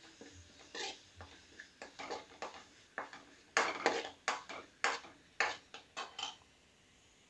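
Steel spoon scraping and clinking against a metal wok as it stirs a thick ginger-garlic-green chilli paste frying in coconut oil. An irregular run of short scrapes, loudest in the middle, dying away near the end.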